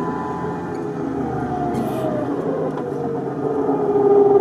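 Electric winch motor whining under load as it hauls a stuck LuAZ out of a muddy rut. Its pitch sinks slowly and it grows a little louder toward the end as the strain comes on.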